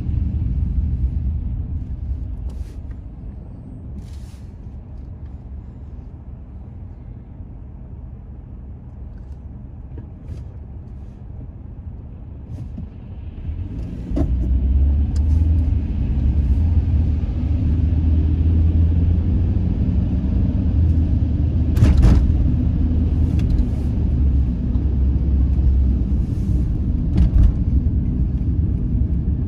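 A car's road noise and engine rumble as it drives, dominated by a low rumble. It eases off for several seconds, then swells again about halfway through as the car picks up speed, with a sharp click about three-quarters of the way in.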